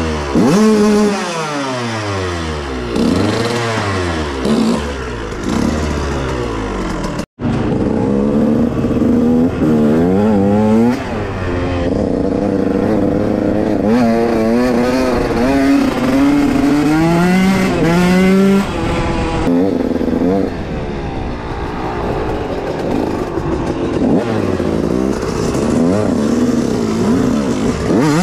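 Several dirt bike engines running together, revving up and down in repeated rising and falling pitch as they ride. The sound cuts out for an instant about seven seconds in.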